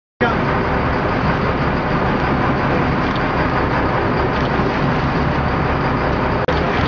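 Boat engine running steadily under way, a constant rumble and rush with no change in pitch. The sound cuts in just after the start and drops out for an instant near the end.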